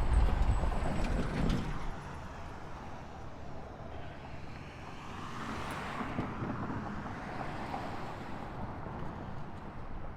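Street traffic: a motor vehicle passing, its noise swelling to a peak about halfway through and then easing off, after a louder low rumble in the first couple of seconds.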